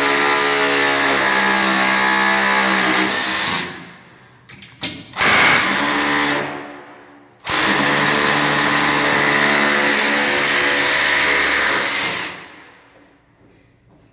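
Cordless drill boring through a metal strip, metal chips coming off the bit. It runs steadily for a few seconds, gives a short burst about five seconds in, then drills again for about five seconds before stopping.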